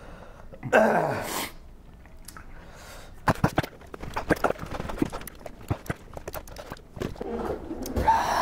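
A man lets out a loud pained cry that falls in pitch about a second in, from the burn of a chili-extract lollipop. After that comes a run of clicks and knocks as plastic drink bottles and napkins are handled on the counter.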